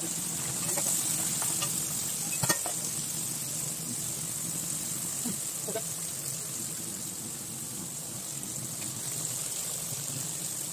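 Pieces of snakehead (varal) fish deep-frying in hot oil in a pan, a steady sizzle at an even level, with a single light knock about two and a half seconds in.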